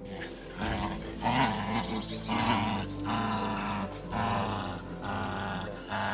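A dog growling in a run of about seven short growls, roughly one a second.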